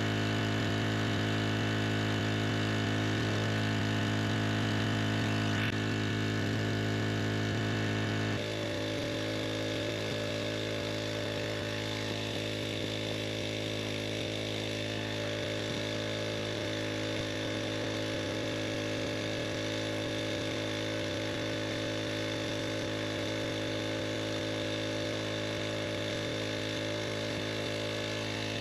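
Koshin Hi-Dels SEV-25F four-stroke engine water pump running steadily while pumping rainwater from one tank to another. About eight seconds in, its tone shifts and it gets a little quieter, then runs on evenly.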